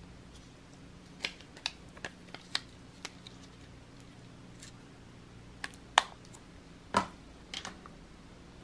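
Light clicks and taps from long fingernails and fingers handling a gold-tone metal powder compact. Two louder, sharper clicks come about six and seven seconds in.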